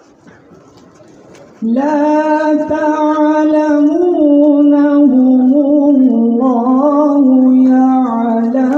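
Music: a voice singing long held notes that step slowly up and down, coming in loudly about a second and a half in after a quieter start.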